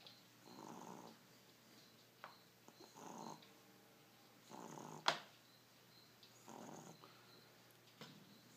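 A sleeping pet snoring quietly, one rough breath about every two seconds. A sharp click about five seconds in is the loudest moment.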